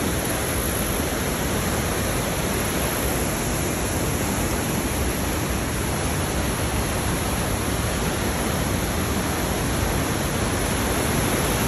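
Rapids of the Niagara River: white water rushing steadily over shallow rock ledges.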